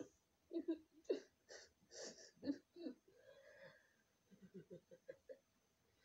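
A boy sobbing with wheezing, gasping breaths: several short cries in the first half, then a quicker run of smaller sobs about four seconds in.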